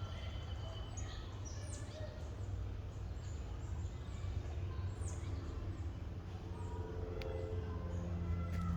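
Birds chirping, a series of short, quick high calls that sweep downward, over a steady low rumble. A steady pitched sound begins to swell near the end.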